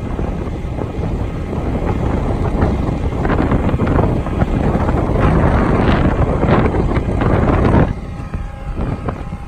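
Wind buffeting the microphone in heavy gusts over the International Durastar bucket truck's diesel engine running with the PTO engaged to drive the boom hydraulics. The gusts drop off about eight seconds in, and a faint steady whine comes through under the engine.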